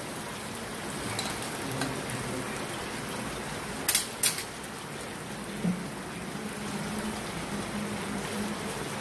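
Chicken and onions frying in a wok with soy sauce, a steady sizzle, while a spatula stirs them and knocks sharply against the pan twice about four seconds in.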